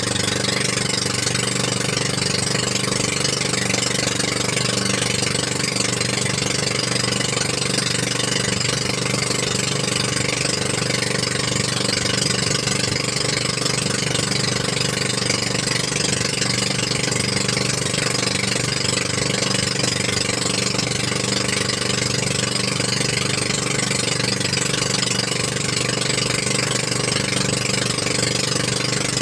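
Motorized bangka outrigger boat's engine running steadily while cruising, with a constant hiss of water and wind over it.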